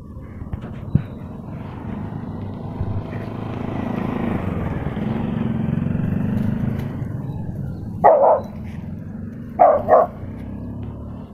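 A motor vehicle passes, its sound swelling and then fading over several seconds. A dog then barks once about eight seconds in and twice in quick succession near the end.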